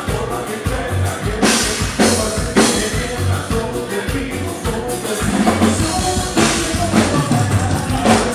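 Live Tejano band playing loud through the club PA: a drum kit with cymbal crashes over a steady bass line.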